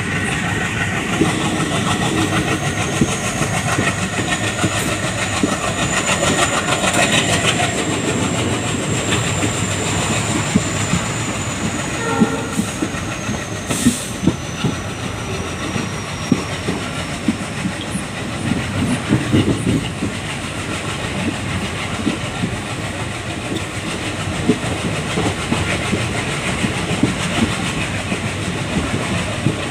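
Train running along, heard from inside a coach near the locomotive: the steady run of a WDG3A ALCO diesel locomotive with wheels clattering over rail joints throughout. A faint thin whine drifts slowly in pitch over the first half.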